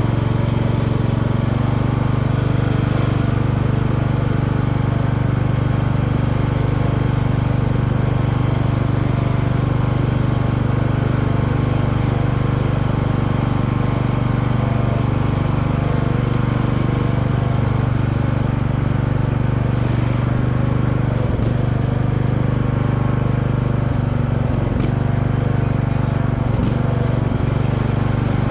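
Craftsman riding lawn mower's engine running steadily at an even speed while the mower is driven.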